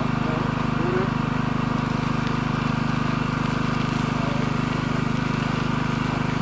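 A small engine running steadily: an unchanging low drone.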